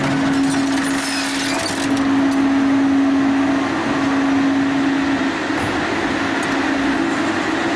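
Shark 1100 hydraulic scrap shear cutting a bundle of steel rebar: a steady hydraulic hum under the grinding and crunching of the bars being pressed and sheared, with a run of sharp metallic cracks about a second in.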